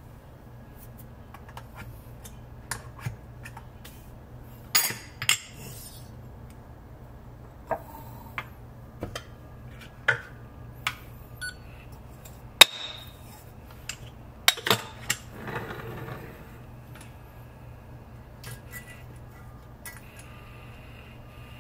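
Metal espresso-prep tools being handled: irregular sharp clinks and taps as a metal dosing cup, portafilter and hand tool are picked up, knocked and set down, the loudest clink about halfway through, with a short scratchy stretch a little later.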